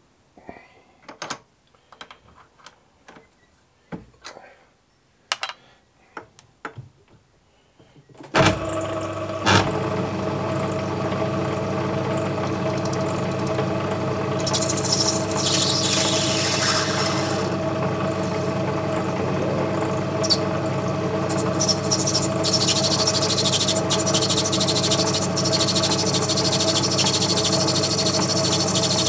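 Myford Super 7 lathe: a few scattered clicks and knocks as the tooling is set, then about eight seconds in the lathe starts with a knock and runs with a steady hum. A higher hissing noise comes and goes over the hum in the later part as the tool faces off a small brass test piece.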